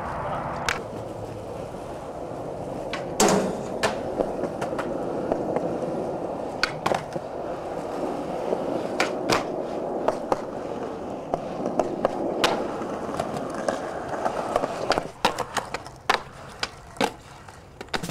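Skateboard wheels rolling over concrete and brick pavers, broken by a dozen or so sharp wooden clacks of the board being popped and landing. The loudest clack comes about three seconds in.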